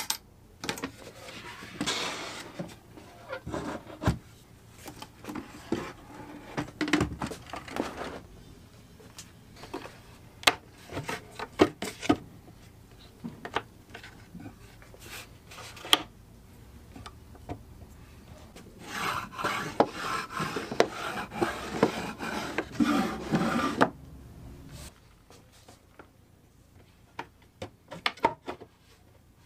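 A wooden cantilever tool chest being opened and worked by hand: brass latch clicks and wooden trays and lids knocking. Two longer stretches of wood rubbing and scraping, the first starting about a second in, the second about two-thirds of the way through.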